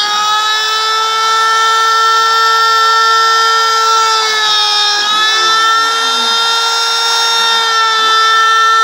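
Router spindle of a homemade CNC machine milling 18 mm plywood: a loud, steady high whine with a cutting hiss, its pitch dipping slightly right at the start and again about five seconds in.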